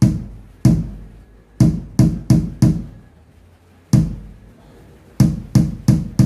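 Electronic kick-drum hits from a drum sound module set to kick mode, played through a speaker: about ten single punchy thuds with a short decay, unevenly spaced, some in quick runs of three or four.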